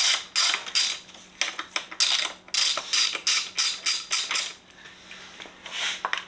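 Hand ratchet wrench with a T30 Torx bit clicking in quick back-and-forth strokes, about three to four a second, as it backs out the airbox bracket bolts. The ratcheting stops about four and a half seconds in.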